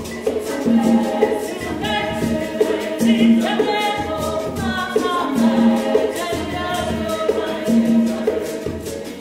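Choir singing in harmony, several voices moving together through a repeating phrase, over a shaker keeping a steady beat.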